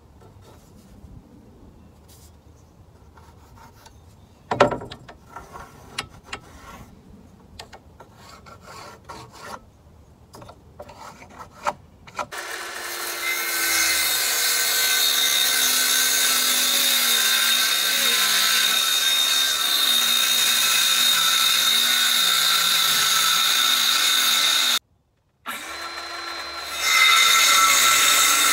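Light taps and rubbing as a board is marked out with a square, then about twelve seconds in a circular saw starts and rips a long strip from a pressure-treated board, a loud steady motor whine with the blade cutting wood. It cuts out briefly near the end, then runs on louder.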